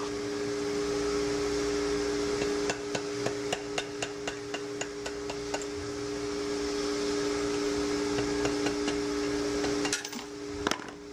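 Red mallet tapping a punch to drive the arbor out of a Bridgeport variable-speed sheave clamped in a vise. The taps come in an irregular run of sharp knocks, several a second, over a steady two-tone hum.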